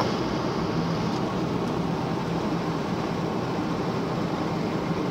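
Steady road and engine noise inside a car cabin travelling at highway speed, with a constant low hum.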